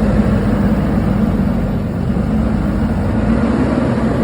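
Heavy diesel engine running steadily at constant speed, a loud, even low drone.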